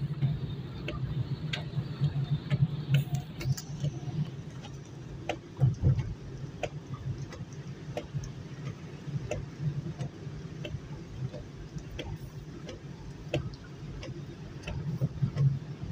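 Raindrops ticking irregularly on a car's windshield and roof, a few sharp clicks a second, over the steady low hum of the car driving on a wet road, heard from inside the cabin.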